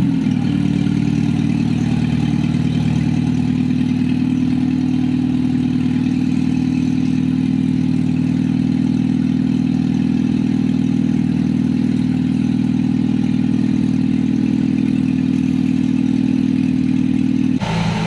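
A 1993 Toyota Corolla's four-cylinder engine, fitted with an aftermarket full exhaust (tubular header and titanium muffler), idling steadily and evenly with no revving. The sound cuts off abruptly near the end.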